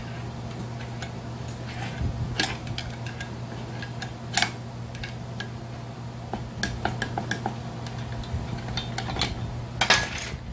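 Metal clinks and knocks of tools and parts being handled while a Zenoah brush cutter's small two-stroke engine is taken apart on a metal workbench. They come irregularly, the loudest at about four seconds in and a cluster near the end, over a steady low hum.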